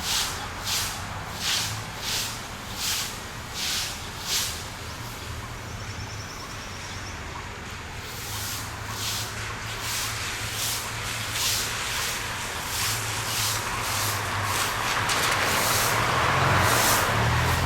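Train sounds: a steady low diesel rumble with a regular hiss repeating roughly every 0.7 s, and the running noise growing louder over the last few seconds.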